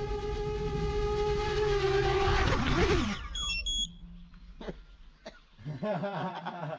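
FPV quadcopter's brushless motors running with a steady high whine, then winding down in a falling whine and stopping about three seconds in as the drone is disarmed after landing. Two short high beeps follow right after.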